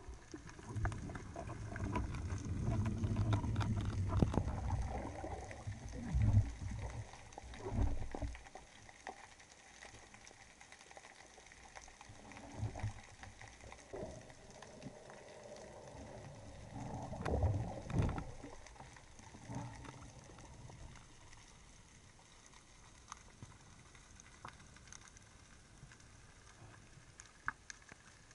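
Muffled underwater rumbling and knocks of a freediving spearfisher moving through the water, heard through an underwater camera housing. The rumbling swells twice with a few thumps between, then settles to a faint hiss with a few sharp clicks near the end.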